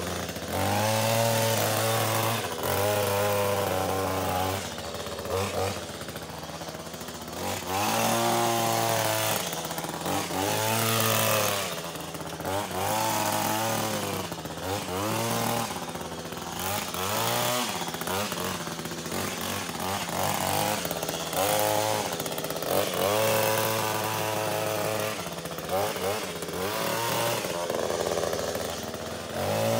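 Echo gas hedge trimmer's small two-stroke engine running, idling between repeated revs to full throttle every second or two as it cuts back an overgrown evergreen shrub.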